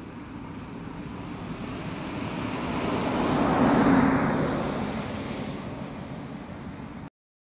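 A vehicle passing by. Its noise swells to a peak about four seconds in, fades away, then cuts off suddenly near the end.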